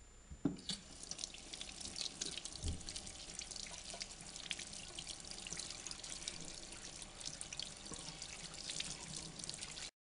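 Kitchen tap running over a sweet potato held in the hands, the water splashing into the sink as the soil is rubbed off it. The splashing starts about a second in and stops abruptly near the end.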